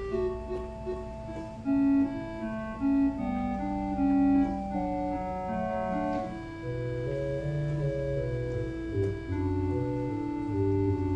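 Organ music: held chords moving slowly from one to the next, with low bass notes coming in a little past halfway.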